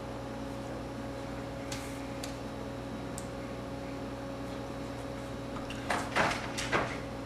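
Steady low room hum, with a few faint ticks and, about six seconds in, a short cluster of rustling scrapes from paper and pencil being handled on a table.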